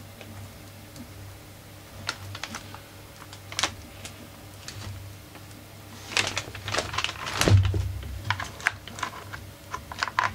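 Irregular clicks, taps and rattles of hard plastic parts of a small portable inverter generator being handled, with a busier stretch two-thirds of the way through that includes one heavier thump, the loudest sound.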